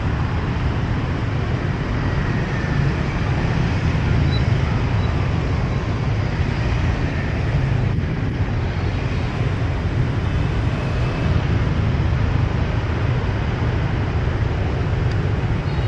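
Steady street traffic noise, with motor scooters and cars passing on the road close by.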